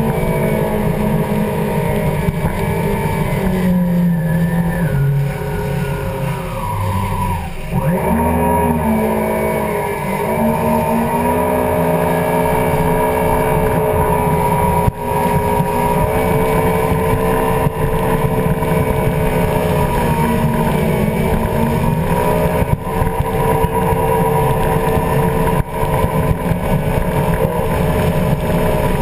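Yamaha WaveRunner jet ski engine running hard at speed, with water spray rushing off the hull. About seven seconds in, the engine note drops briefly as the throttle eases, then climbs back to a steady run.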